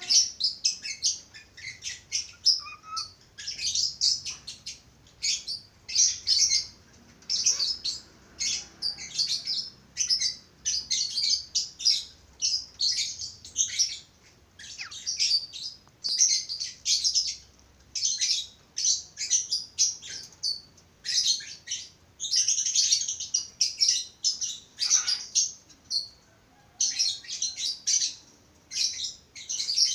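Budgerigars chattering: a busy run of short, high chirps and warbles with brief pauses between bursts.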